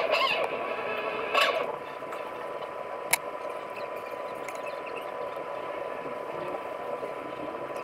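Metal suturing instruments and thread being handled during suture practice on a silicone pad: soft scrapes near the start and a sharp click about three seconds in, over a steady room hum with a constant high tone.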